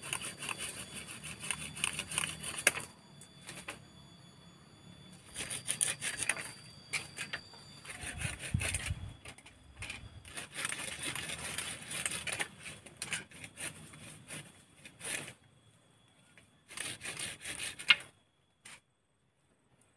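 Knife blade scraping along bamboo poles in quick repeated strokes, coming in spells with short pauses between them. A sharp knock near the end, after which the scraping stops.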